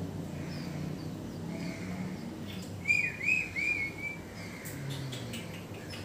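Hand-reared songbird nestlings cheeping to beg for food: a quick run of about four short, arched chirps a little after three seconds in, over fainter high cheeps.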